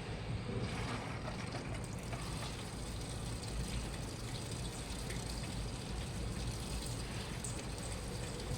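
Washing machine running, a steady low motor hum with water moving and trickling inside the drum.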